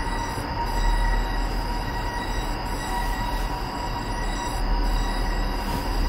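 Aerial cable car running, heard from inside the gondola: a steady rumble with several high, steady whining tones over it.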